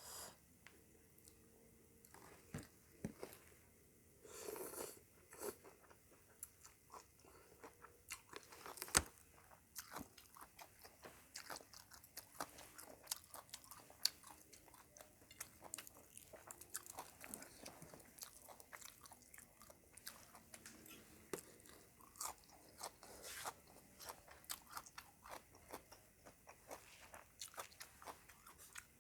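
A person eating close to the microphone: quiet chewing with many small, irregular wet mouth clicks, broken by a few louder crunching bites of crisp food.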